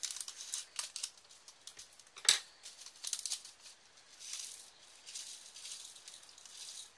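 Scissors snipping open a small plastic bag of diamond-painting rhinestone drills, then the bag crinkling and the drills inside rattling, with one sharp click about two seconds in.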